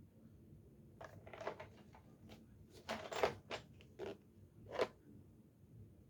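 Plastic tool-set case being handled: a string of sharp clicks and knocks, a few a second apart, the loudest bunch about three seconds in and a last knock near the end.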